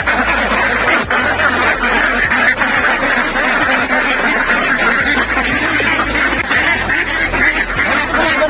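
A large laying flock of domestic ducks quacking all at once, a dense, steady din of overlapping calls with no letup.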